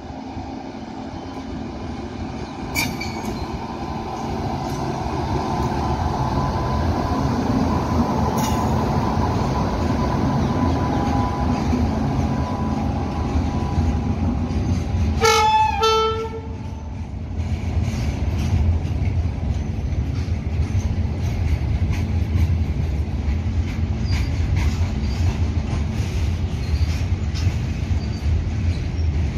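WAG-9 electric locomotive and its freight wagons rolling past on the rails, the rumble building as it nears, with a thin whine as the locomotive approaches. About halfway through, the locomotive sounds one short horn blast, about a second long; afterwards the wagons keep rolling by.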